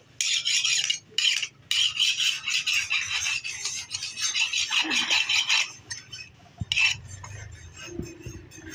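Flat steel hand file rasping across the blade edge of a forged hatchet head on an anvil, sharpening it in a run of strokes for about five and a half seconds, then one short stroke about a second later.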